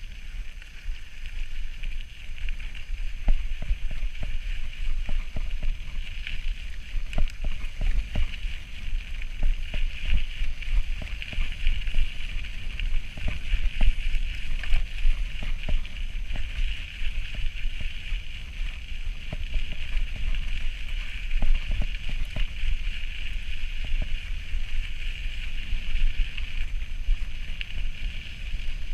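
Mountain bike rolling along a gravel track: a steady tyre hiss with frequent small clicks and rattles from gravel and the bike, over a deep wind rumble on the camera microphone.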